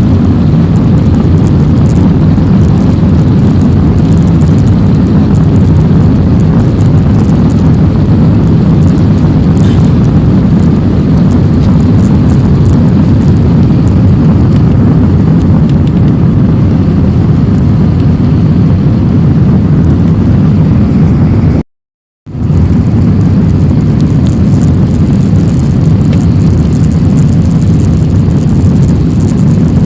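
Airliner jet engines and airflow during the take-off flight: a loud, steady, low rumble. About two-thirds of the way through, the sound cuts out for a moment.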